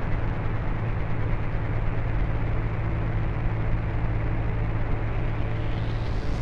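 A steady, low, rumbling drone with held low tones. Near the end a rising hiss swells in above it.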